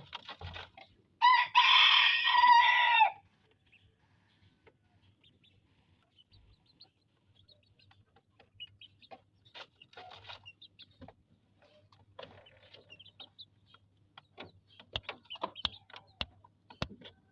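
A rooster crows once, a loud call about two seconds long starting about a second in. Faint scattered clicks and taps follow.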